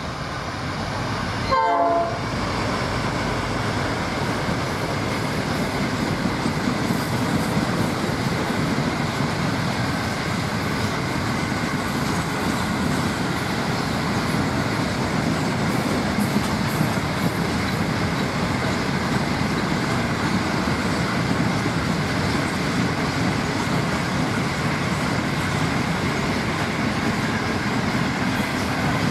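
Freight train hauled by diesel locomotives passing: a short horn blast about two seconds in, then the steady rumble of the locomotives and wagons rolling on the rails.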